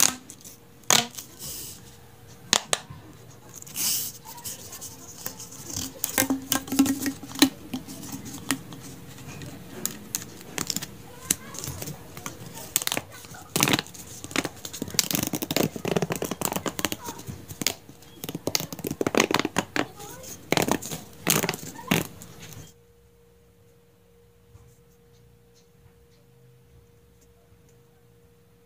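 Plastic pop tubes being stretched, bent and squeezed by hand, their corrugated ribs snapping open and shut in rapid, irregular clicks and crackles. The clicking stops abruptly late on, leaving only a faint steady hum.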